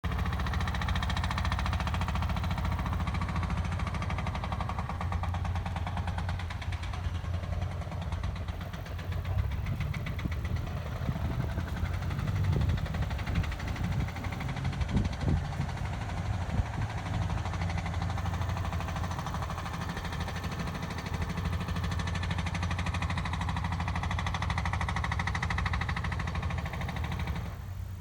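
Jackhammer pounding steadily in a rapid, even rattle of blows, with a few heavier knocks about halfway through, stopping just before the end.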